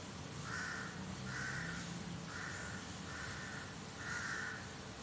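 A crow cawing five times in an even series, each caw about half a second long and coming roughly once a second.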